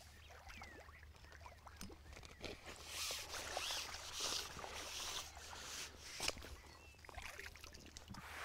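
A hooked koi carp splashing at the water's surface in bursts as it is drawn to the landing net, with a few light knocks.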